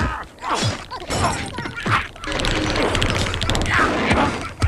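Cartoon slapstick sound effects: a dense run of crashes, knocks and clatter, with a couple of sweeps that fall steeply in pitch.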